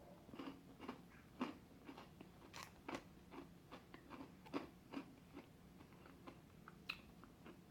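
A person chewing a ruby-chocolate Kit Kat wafer bar: faint, irregular crunches, a few a second.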